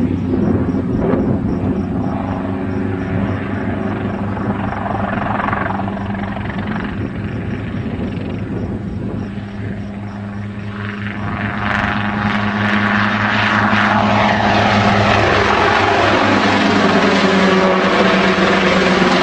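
Helicopter engine and rotor running with a steady hum, growing louder partway through.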